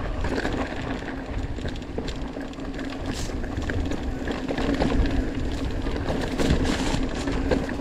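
Orbea Occam mountain bike ridden fast downhill over a gravel track and then dirt singletrack: tyre noise on loose ground with a constant rattle of small knocks and ticks from the bike, and wind buffeting the microphone. It grows somewhat louder in the second half.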